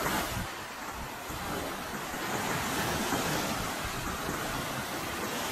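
Small waves breaking and washing up a sandy beach in a steady rushing surf, with some wind buffeting the microphone.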